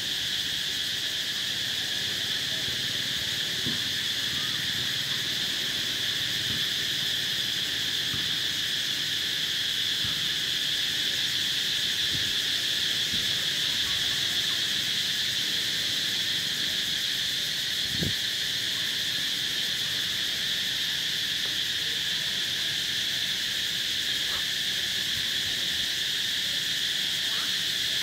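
A steady, high-pitched insect chorus droning without a break, with a few faint knocks underneath.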